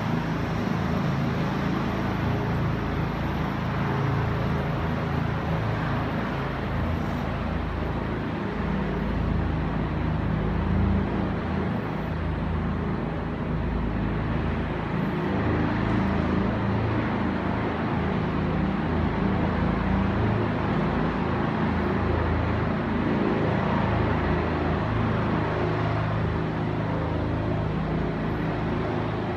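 Air ambulance helicopter coming in to land on a rooftop helipad: a steady drone of rotor and engines with a low hum, heard through window glass.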